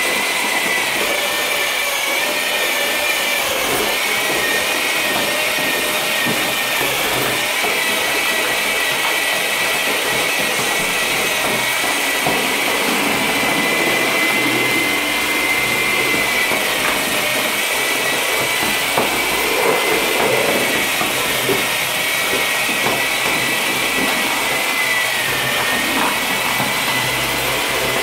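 Electric drill running continuously as it chips plaster off a wall, a steady high motor whine that dips briefly in pitch now and then under load.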